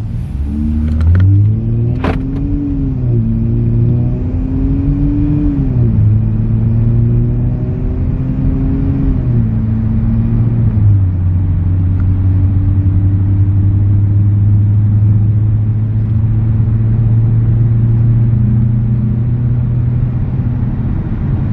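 Dodge Charger V6 with resonator deletes accelerating hard from a roll, heard from inside the cabin. The exhaust note rises and drops back through about four upshifts in the first eleven seconds, then settles into a steady cruising note.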